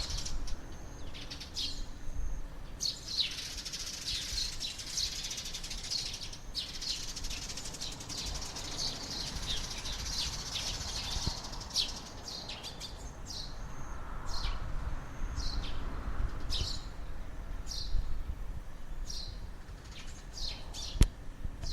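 Sparrows chirping in a morning chorus. The chirps are dense and overlapping for the first half, then thin out to separate chirps. A low rumble runs underneath, and there is a sharp click near the end.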